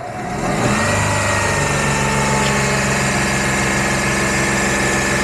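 Renault Kwid's three-cylinder petrol engine running, picking up over the first second and then holding a steady idle.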